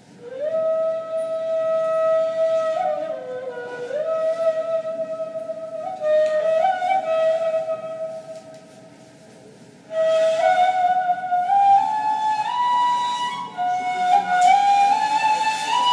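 A ney (end-blown cane flute) playing a slow improvised taksim: breathy, held notes that slide from pitch to pitch. One phrase sinks and trails off, and after a pause of about two seconds a second phrase climbs step by step.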